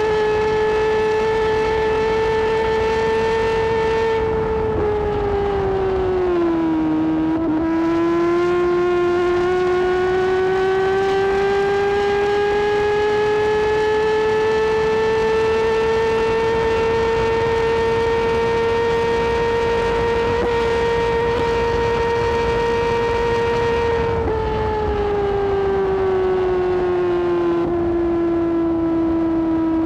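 Suzuki GSX-R1000R's inline-four engine running at high revs at speed, with wind rush underneath. Its pitch sags about five seconds in, climbs slowly for the next twenty seconds, and drops again near the end.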